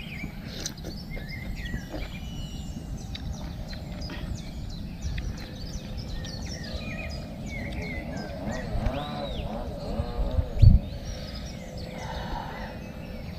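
Open-air ambience: many short bird chirps over a steady low rumble of wind on the microphone, with one loud thump about ten and a half seconds in.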